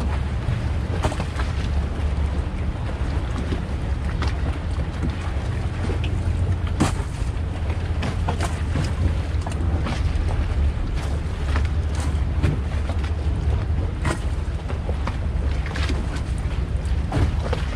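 A boat's engine running with a steady low rumble, with wind on the microphone and short sharp sounds now and then.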